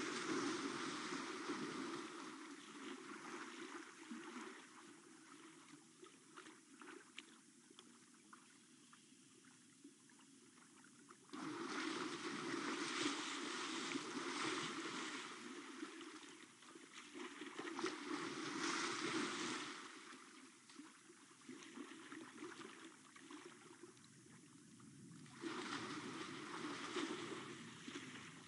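African elephant wading and splashing in a shallow waterhole: water sloshing and splashing in bouts that start abruptly, about eleven seconds in and again near the end, each dying down over several seconds.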